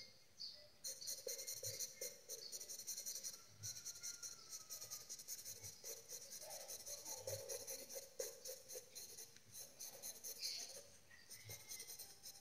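Pencil scratching across paper in quick, repeated short hatching strokes, with brief pauses between runs.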